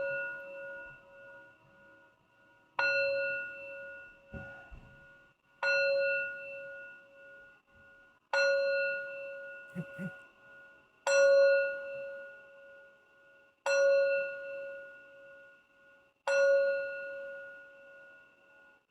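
Singing bowl struck six times, about every two and a half seconds, each strike ringing a clear tone with higher overtones that slowly fades before the next. At the start the ring from an earlier strike is still dying away.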